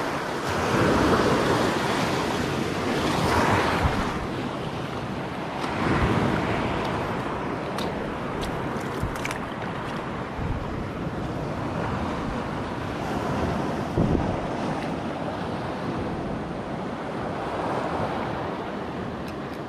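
Sea waves surging and washing over a rocky shore, with wind buffeting the microphone; the surges swell and fall every couple of seconds at first and settle to a steadier wash. A single brief knock about fourteen seconds in.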